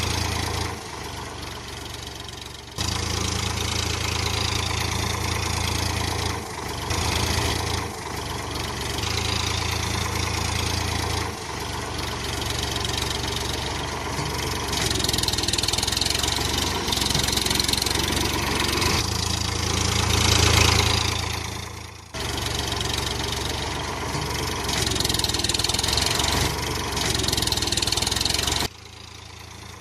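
Tractor engine idling, a steady low chugging hum that cuts off and comes back abruptly every few seconds.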